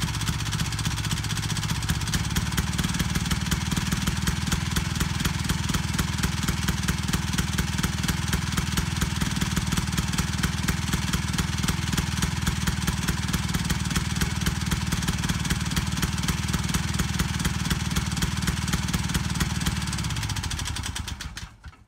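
Harley golf cart engine running steadily with a rapid, even exhaust beat, then shut off, dying away about a second before the end. The exhaust, with its header gasket now fitted, is kind of peppy.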